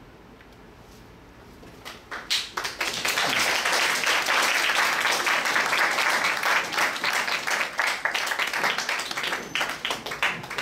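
Audience applauding. It starts with a few claps about two seconds in, swells quickly into dense, steady applause, and thins toward separate claps near the end.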